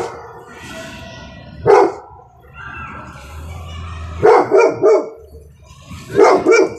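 A pet dog barking in short, excited barks: one, then a quick run of three, then two more near the end. It is the sound the dog makes when it sees children playing outside and wants to play with them.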